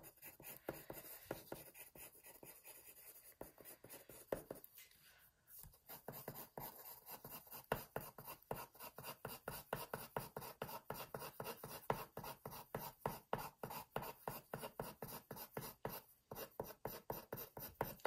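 Green coloured pencil scratching on paper in quick, repeated short strokes, several a second, sketching blades of grass; the strokes pause briefly about five seconds in.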